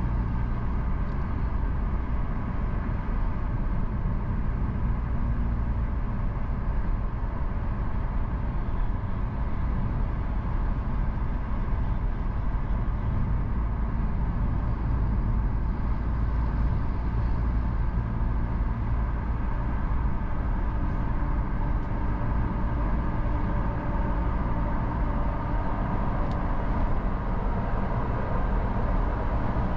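Steady road noise heard from inside a moving car: a low tyre and engine rumble at cruising speed, unchanging throughout.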